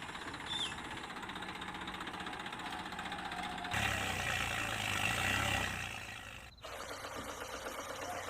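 A motor running steadily, growing louder for a couple of seconds in the middle and then dropping back, with a brief break about six and a half seconds in.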